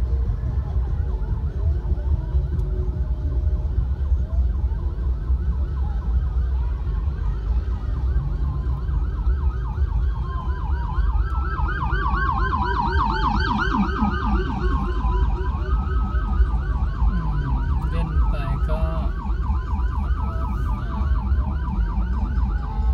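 Emergency vehicle siren wailing, at first in slow rising and falling sweeps, then switching about halfway to a fast warbling yelp. Under it is a steady low rumble of idling traffic, heard from inside a car.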